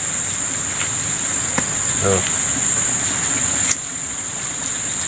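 Steady high-pitched drone of insects, with a few faint clicks over it.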